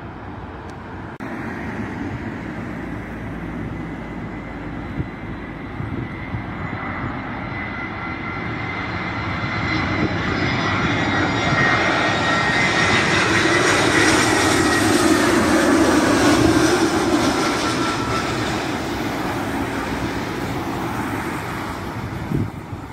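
Airbus A320 jet airliner flying low overhead on landing approach: the engine noise builds, peaks and then fades as it passes. A thin engine whine falls slightly in pitch as the plane goes by.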